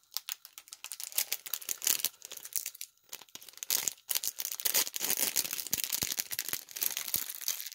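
Packaging of a single-serve coffee bag crinkling and tearing as it is unwrapped: a fast, irregular run of crackles with brief pauses.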